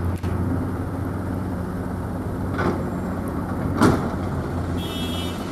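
Heavy diesel engines of a hydraulic excavator and dump trucks running steadily at a low hum while soil is loaded, with two sharp knocks about two and a half and four seconds in, the second louder.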